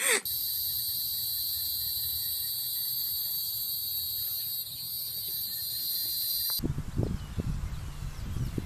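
Steady, high-pitched chorus of insects droning without a break. About six and a half seconds in it cuts off abruptly, giving way to irregular low rumbling and a few knocks.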